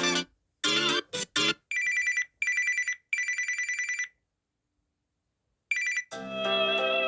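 Samsung Galaxy A36 5G ringtones played one after another. A guitar tune cuts off at the start, a few short gliding notes follow, then a fast-trilling electronic ring in three bursts, a pause, a brief snatch of the same trill, and near the end another guitar tune begins.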